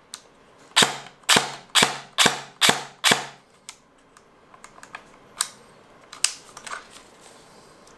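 Charging handle of an ARP9 electric gel ball blaster being worked by hand: six sharp clacks about every half second, then a few fainter clicks.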